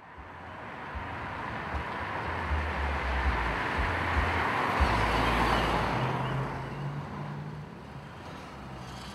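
A car driving past on the street: road and tyre noise over a low rumble swells to its loudest about five seconds in, then fades.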